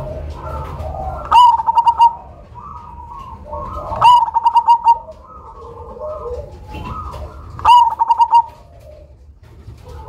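Zebra dove (black cemani perkutut) singing its song three times, each a loud run of quick rolling coo notes, with softer cooing and chirping from other birds in between.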